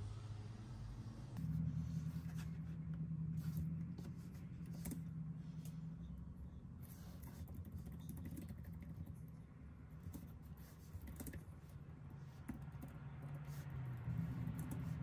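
Typing on a Logitech K380 keyboard with round, low-profile scissor keys: a run of quiet key clicks that starts about a second and a half in.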